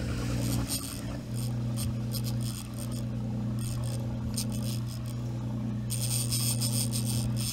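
Boat engine running steadily under irregular bursts of high, scratchy rasping, heaviest near the end.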